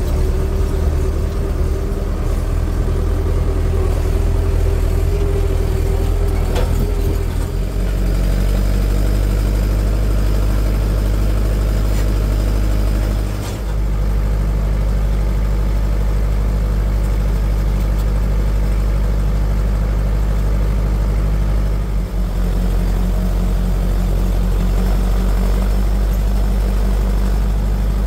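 Case IH 845 XL tractor's diesel engine running steadily, heard from inside the cab. About seven seconds in a higher whine stops and the engine note drops deeper. From then on it runs under steady load, pulling a subsoiler through the field.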